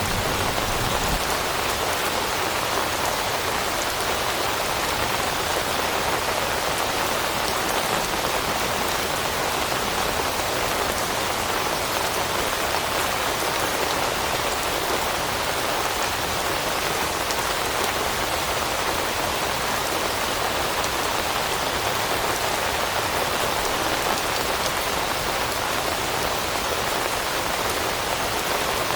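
Steady rain falling on leaves and foliage, a constant even patter with no let-up.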